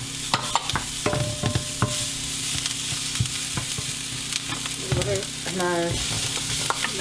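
Diced onion and celery sizzling steadily in butter in a nonstick frying pan, stirred with a wooden spoon that scrapes and knocks against the pan, with a couple of brief squeaks. Near the end, chopped apple is tipped into the pan.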